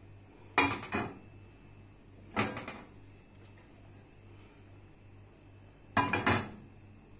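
Cookware clatter: a frying pan knocking against a gas stove's grate, a few sharp knocks with a brief ring in three clusters: about half a second in, about two and a half seconds in, and a last pair near the end.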